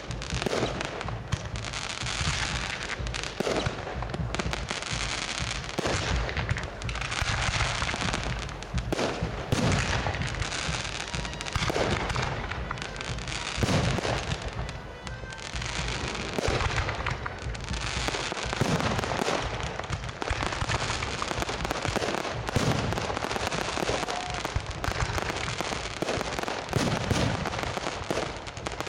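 Fireworks display: a dense, continuous barrage of shell bursts, with bangs coming many times a second over deep booms and no pause.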